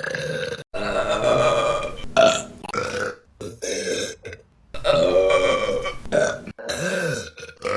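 Women burping: a run of long, loud burps from different clips, one after another, joined by abrupt cuts. Some rise and fall in pitch.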